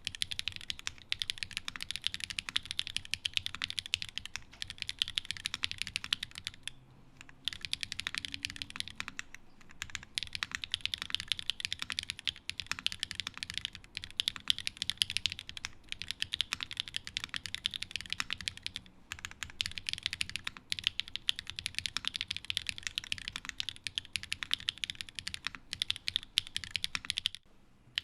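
Continuous fast typing on a mechanical keyboard with SW x Gateron DEEPPING 4.0 linear switches (nylon housing, POM stem, 4.0 mm travel) bottoming out on an FR4 plate in an O-ring mount, no foam, under GMK keycaps. A dense run of key clacks, with brief pauses about seven seconds in and again near the end.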